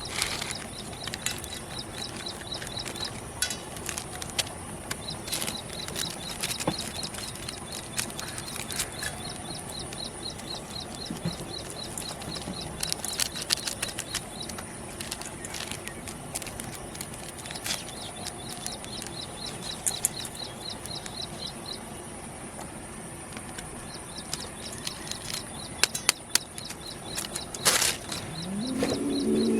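Outdoor rural ambience: a rapid high trill that comes and goes in stretches of several seconds, scattered sharp clicks, and a faint steady high whine.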